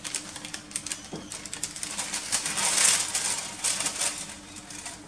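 Kitchen paper and a plastic laminating pouch rustling and crinkling in quick crackly clicks as they are laid out on an oven's wire rack, loudest about three seconds in, over a faint steady hum.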